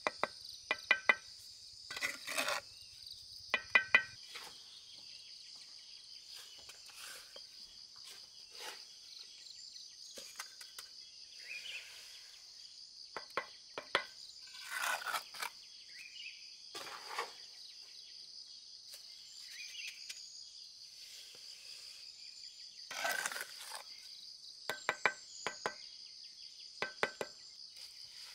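Bricklaying trowel tapping bricks down into wet mortar, in short clusters of sharp ringing clicks, with a few rougher scrapes of the blade through mortar. A steady high insect drone, like crickets, runs behind.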